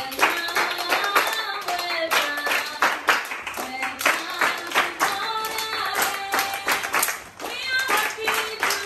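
A group of children singing a song together and clapping along in rhythm.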